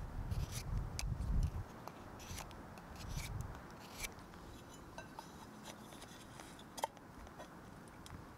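A knife whittling a thin wooden stick: short, crisp scraping strokes of the blade along the wood, at irregular intervals.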